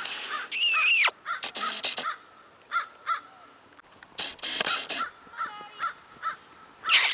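Crows cawing: a run of short, harsh calls repeated every fraction of a second, with a louder cluster of calls about four seconds in and again near the end.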